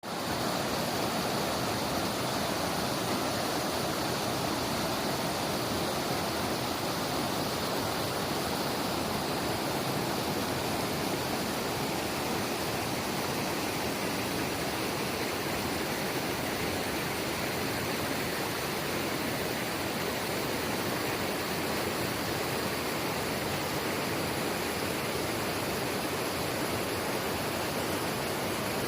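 Gorge river flowing, a steady rush of water with no change throughout.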